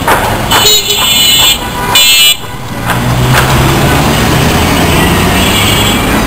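Road traffic with vehicle horns honking: a long horn blast about half a second in and a short one at about two seconds, then the low, steady running of passing car engines with a faint horn near the end.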